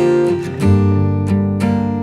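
Background music: acoustic guitar being plucked and strummed, with a note struck roughly every half second.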